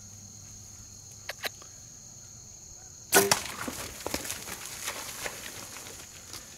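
Bow shot at a sika deer: a single sharp crack of the bowstring and arrow about three seconds in, followed by the deer crashing off through the marsh reeds. Before the shot, insects drone steadily with two faint clicks.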